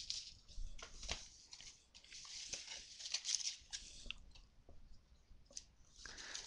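Faint rustling and scattered light clicks of a cardboard 2011 Playoff Contenders football card box being handled and opened, its lid flap lifted.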